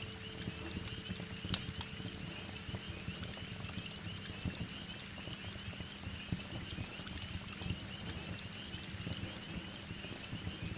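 Wood fire crackling with scattered sharp pops, the loudest about one and a half seconds in, over a steady hiss of heavy rain.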